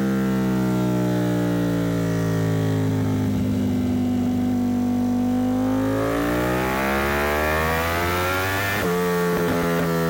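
Ducati Panigale V4's 90-degree V4 engine running on a dyno through an Arrow titanium exhaust. The revs fall away, hold low for a couple of seconds, climb again, then drop suddenly about nine seconds in and hold steady.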